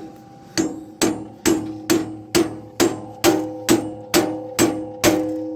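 A hammer striking metal about eleven times at an even pace of roughly two blows a second, each blow followed by a metallic ring, as a small pulley is driven onto the lawnmower transmission's shaft.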